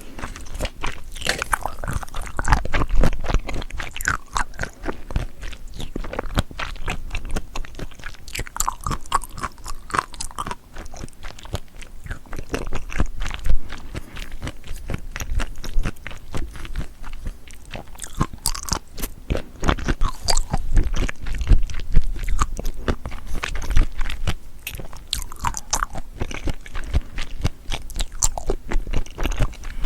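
Close-miked mouth sounds of someone chewing seafood: dense, irregular crunching, popping and wet clicks as the food is bitten and worked between the teeth.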